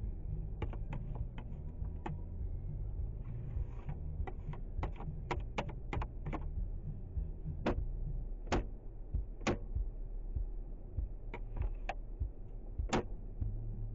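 Steady low rumble of a car being driven, heard from inside the cabin, with irregular sharp clicks and taps over it, some in quick clusters and a few louder single ones about a second apart.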